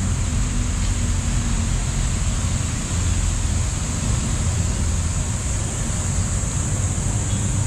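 Steady city traffic rumble, a continuous low drone with a steady high hiss over it and no distinct events.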